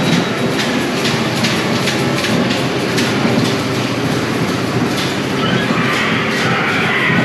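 Dark ride car rolling along its track, a steady rattling rumble with clacks about twice a second. A high squeal comes in near the end.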